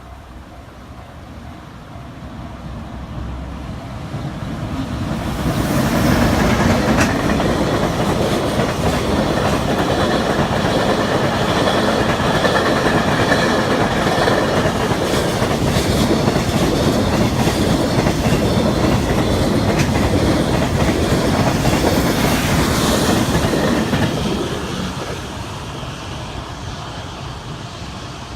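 Freight train passing close by on the Tohoku Main Line: a rumble of wheels with clickety-clack over the rail joints. It builds over the first few seconds, stays loud for about eighteen seconds, then fades away near the end.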